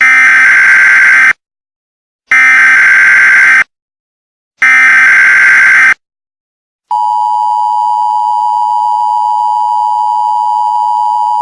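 Emergency Alert System tones: three identical SAME digital header bursts, each about a second and a quarter long with a second's gap between them, which encode the alert. About seven seconds in, the steady two-tone attention signal starts; it announces that a spoken warning follows.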